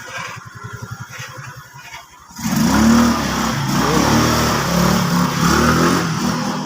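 Rusi Royal 125 scooter's single-cylinder four-stroke engine idling with a steady pulse, then speeding up and held at higher revs from about two and a half seconds in, easing off near the end. It picks up cleanly with no bogging or hesitation, the sign that the newly fitted D-type carburettor and CVT tune have cured its hard starting and 'hagok' stumbling.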